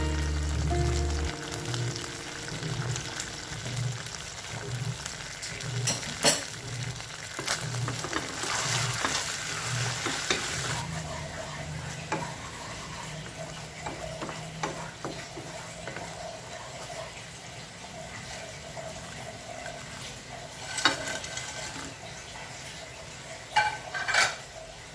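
Food sizzling in a frying pan while it is stirred, with a few sharp knocks of the utensil against the pan, two of them close together near the end.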